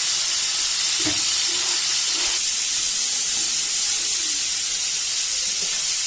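Cauliflower florets frying in hot oil in a kadai, a steady loud sizzle, with a couple of light knocks about one and two seconds in.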